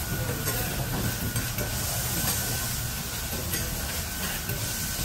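Noodles frying with a steady sizzle on a hot steel flat-top griddle, with a metal spatula now and then scraping and tapping the plate as they are tossed.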